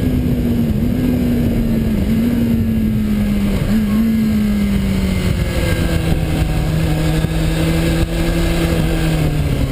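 2006 Kawasaki ZX-6R 636 inline-four engine winding down as the bike slows, its revs falling with three brief dips in the first few seconds, then holding steady at low revs. Heavy wind rushes over the onboard microphone throughout.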